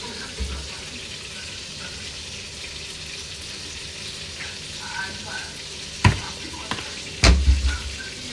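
French fries frying in hot oil, a steady hiss. Two sharp clicks about six seconds in and again a second later.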